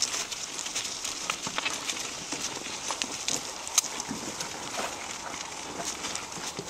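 Hoofbeats of a Curly pony mare pulling a cart on a leaf-strewn dirt trail, with irregular clicks and rattles from the harness and the bumping cart. One sharp knock stands out a little under four seconds in.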